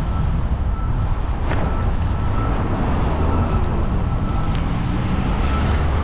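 Wind rumbling steadily over the microphone while moving along a street, with road traffic noise underneath and a short sharp click about a second and a half in.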